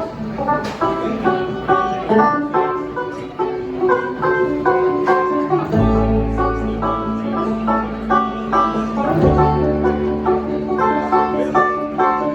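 Bluegrass band playing live, with fast picked string notes throughout. Long held low notes come in underneath about halfway through.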